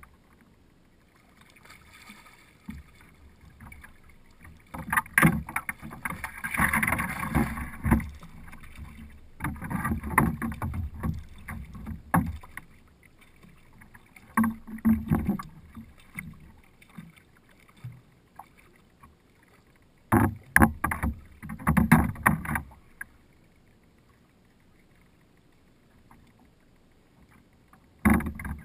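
Knocks and rustling from a fishing kayak and its rod and gear while a fish is fought, coming in irregular bursts a second or three long with quieter stretches between.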